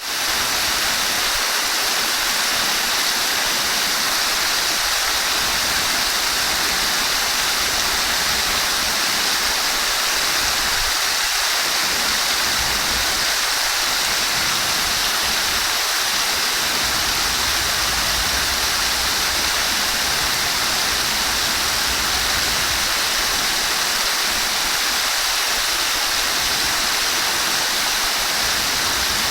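Flowing water rushing steadily and evenly, a constant hiss with no breaks or splashes standing out.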